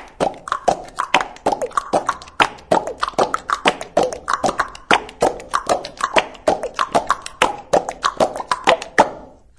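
Percussive music track: rapid, irregular hits, several a second, each dropping in pitch. It cuts off abruptly near the end.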